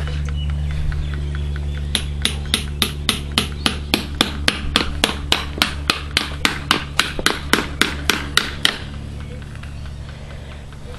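A run of about two dozen sharp, evenly spaced knocks, three to four a second, like a hammer tapping, that stops suddenly near the end, over a steady low hum.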